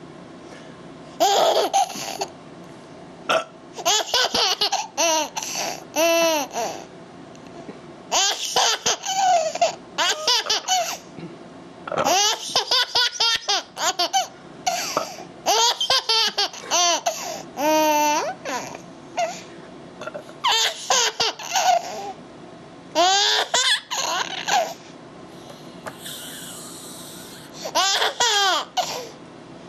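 A young child laughing in repeated high-pitched bursts, with short pauses between them.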